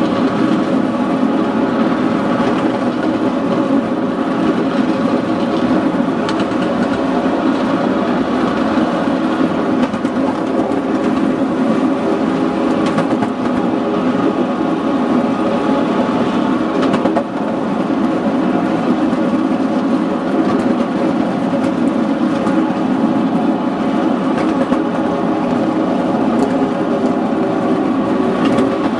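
Miniature ride-on railway locomotive running steadily along the track, a continuous mechanical drone with no let-up.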